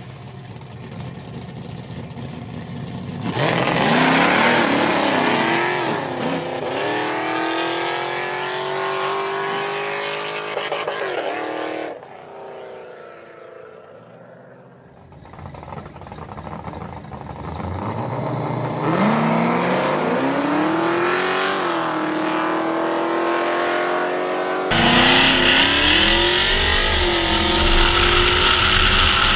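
High-horsepower drag cars rumbling at the start line, then launching at full throttle, the engine note climbing and falling back through several upshifts as they pull away. After a short lull a second hard run climbs through its gears the same way. Near the end, a steady engine and wind hiss heard from inside a moving car.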